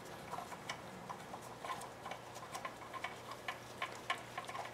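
3/8-inch drive ratchet on a long extension clicking faintly in short, irregular runs as a 10 mm bolt is turned in by hand.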